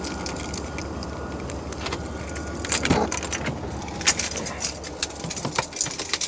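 2007 Audi A3 1.8 FSI four-cylinder petrol engine idling with a misfire, running a bit lumpy; the car logs a random/multiple-cylinder misfire code, with a misfire reported on cylinder 4. Scattered sharp clicks sound over the steady engine noise, several between about four and six seconds in.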